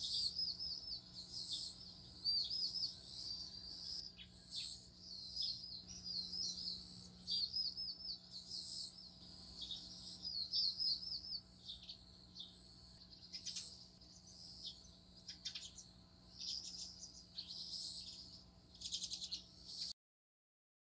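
Small birds chirping in quick repeated phrases over a pulsing high insect buzz; it cuts off suddenly near the end.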